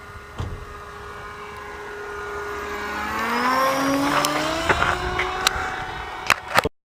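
Electric motor and propeller of a foam RC airplane whining. The pitch is steady at first, then rises and grows louder from about halfway through, as the throttle comes up. A few sharp clicks come near the end, and the sound cuts off abruptly.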